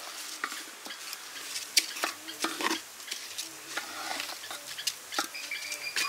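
A ladle stirring and scraping rice grains around inside an aluminium pot, with irregular clicks and scrapes against the metal.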